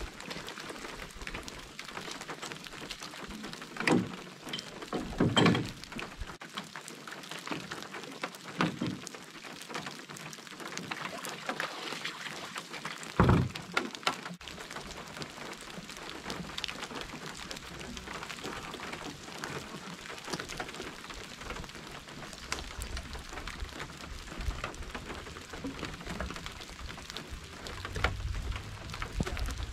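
Steady rain falling on a lake and its pebbly shore. A few heavy thumps and knocks of gear being loaded into an aluminum-trimmed canoe cut through it, the loudest about 13 seconds in.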